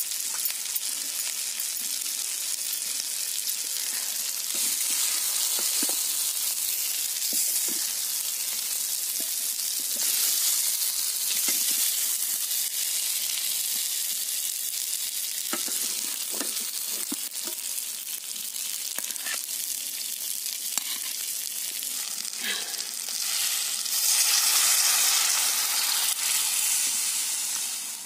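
A steady sizzling hiss, with scattered clinks and scrapes of a steel spoon against a steel plate and pot as mutton curry is served. The hiss swells near the end.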